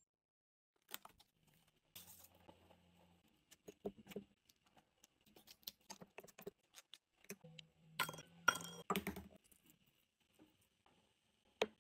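Quiet kitchen handling sounds: scattered small clicks, taps and clinks of glass bowls, a spoon and utensils, with a busier run of clatter about eight seconds in.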